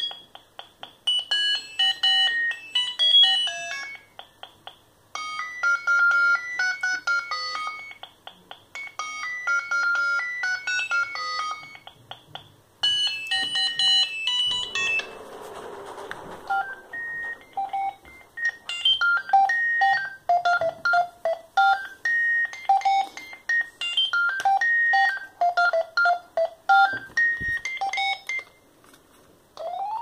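Philips Fisio 620 mobile phone playing its built-in ringtones through its small speaker as melodies of beep notes. One tune repeats in short phrases with pauses, then a brief rustle of handling midway, then a different ringtone melody plays.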